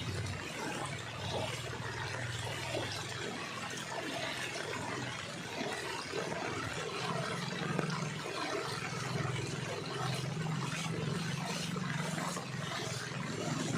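Floodwater rushing and trickling where the drainage is broken. A low steady hum drops out at the start and comes back about halfway through.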